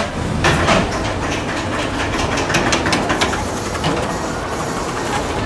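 Pteranodon Flyers suspended ride car running along its overhead steel track: a steady rumble with a run of sharp clacks and clicks, densest in the first half.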